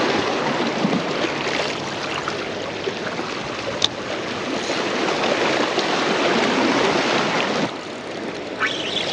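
Small waves washing and splashing against the jetty's rocks: a steady hiss of moving water that eases off near the end.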